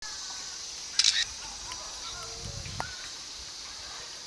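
Outdoor ambience among trees: a steady high-pitched hiss throughout, a short loud noisy burst about a second in, and faint chirps with a quick sweep near three seconds.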